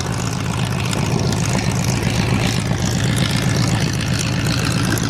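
Model airplane's engine and propeller running steadily with a low, fluttering drone.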